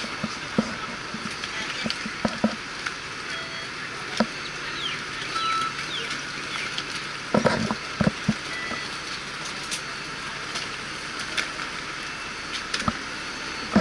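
Idling Citybus double-decker: a steady hiss of engine and fan noise at the open front door, with scattered knocks and clicks, loudest about seven and a half to eight seconds in, as passengers board with luggage.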